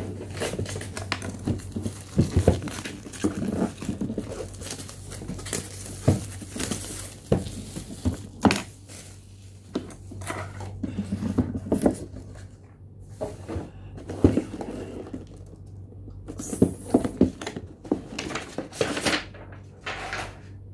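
Unboxing handling noises: a knife cutting at a cardboard box, with packaging crinkling and tearing and scattered knocks and clicks of things set on the table.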